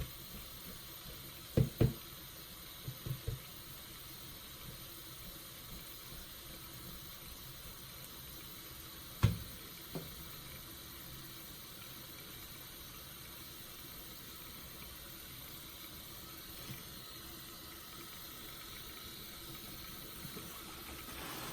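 Soapy sponge squeezed in water: a few soft wet squishes, the loudest about nine seconds in, over a steady faint hiss.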